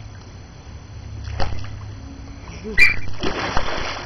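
A dog barks once near the end, followed by a short burst of pool water sloshing and splashing as a baby is lifted in the water.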